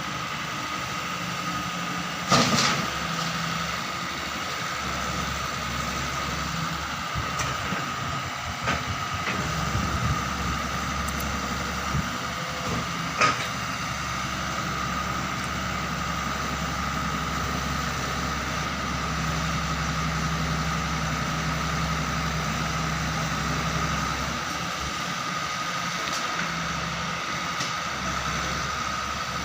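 Doosan 140 wheel excavator's diesel engine running steadily with a constant high whine, with a sharp knock about two seconds in and another about thirteen seconds in.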